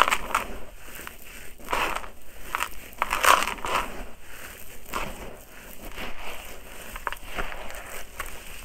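Hands raking and squeezing dry, gritty soil in a plastic tub: irregular crunching and grinding of grit and small stones, loudest a little past three seconds in.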